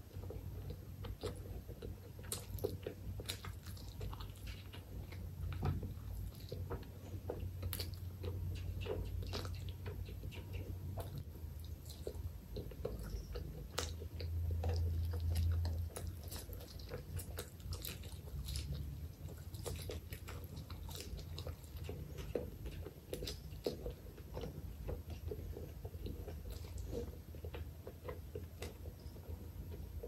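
Close-miked eating of chicken liver curry with rice and fried egg, taken by hand: steady chewing and biting with many small wet mouth clicks, and a louder low rumble about halfway through.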